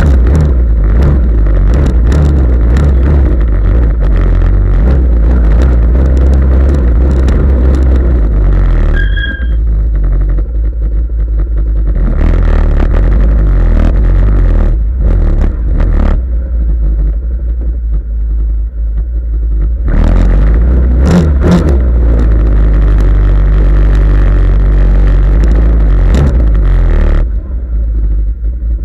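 Off-road vehicle engine running loud, revving up and easing off several times, with many sharp clicks and knocks over the top.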